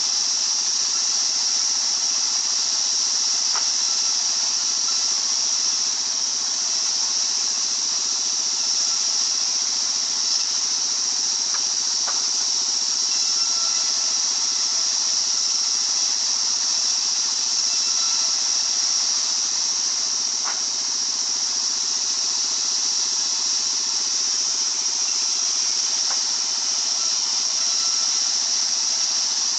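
Sawmill circular saw running steadily, an even high-pitched hiss with a few faint ticks.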